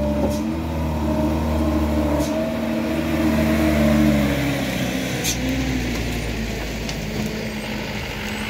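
A motor vehicle engine running close by under slow pulling. It swells to its loudest about four seconds in, then eases back. A few light clicks sound over it.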